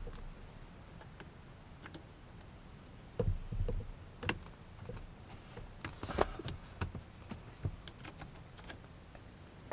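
Scattered clicks, rattles and knocks of car seat parts and hardware being handled and fitted, busiest in two bunches about three and six seconds in.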